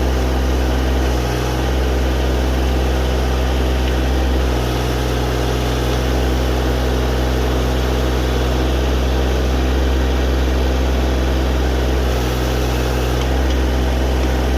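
Tractor loader-backhoe engine running steadily, its low note shifting slightly a few times.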